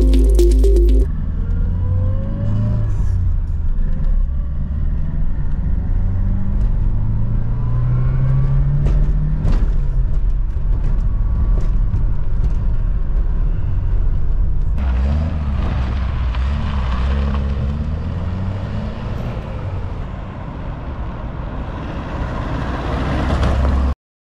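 1985 Renault Fuego Turbo's turbocharged four-cylinder engine heard from inside the cabin while driving, with steady road noise. The engine note rises as it pulls through a gear about eight seconds in. The sound cuts off abruptly near the end.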